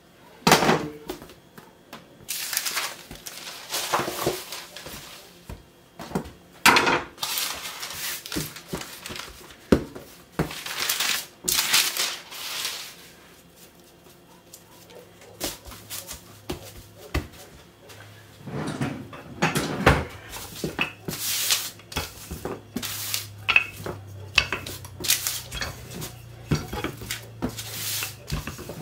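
Kitchen work on a stainless steel bench: a large knife knocking and scraping on the steel as it cuts pizza dough, then the dough being handled and rolled out with a wooden rolling pin on baking paper. There are irregular clinks and knocks and several rustling swishes, with a faint low hum in the second half.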